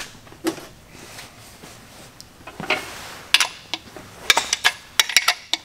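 Sharp metal clicks and clinks of a socket wrench with a long steel extension being fitted to and worked on an engine block's main-cap bolts. The first few seconds are quiet, then a quick run of clicks begins about three seconds in.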